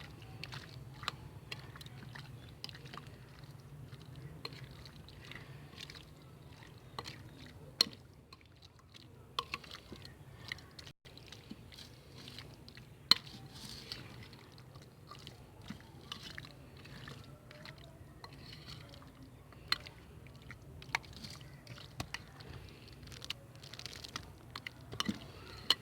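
Chicken pieces being mixed by hand with a spice marinade in a bowl: soft wet squishing with scattered sharp clicks and knocks, the loudest about 13 seconds in.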